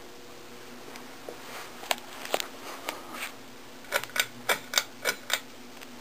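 Sharp mechanical clicks from a ceiling fan's pull-chain switch and chain being worked to switch the fan on: a few scattered clicks and knocks, then a quick run of about six clicks in just over a second near the end.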